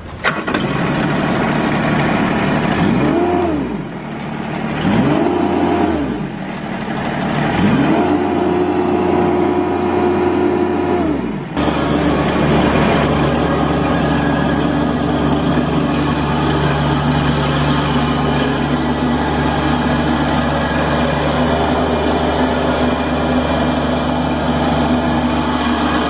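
Kubota diesel engine of a Toro Dingo TX427 tracked mini skid steer revved up and back down three times, the third rev held for a few seconds. It then settles into steady running about halfway through, as the machine drives on its tracks.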